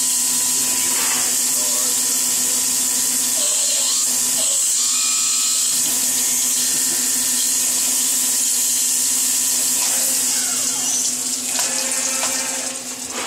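CNC milling machine running a cut: a steady hiss over a steady low hum, which drops and wavers about eleven seconds in.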